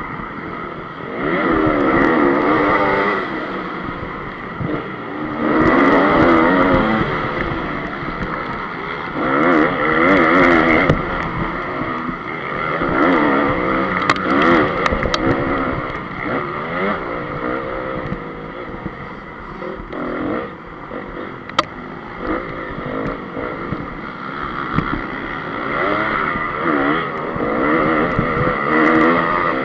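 Honda CRF250's four-stroke single-cylinder engine heard on board while racing a motocross track, revving hard and dropping back again and again every three to four seconds as the rider accelerates, shifts and slows for turns. A few sharp clicks come partway through.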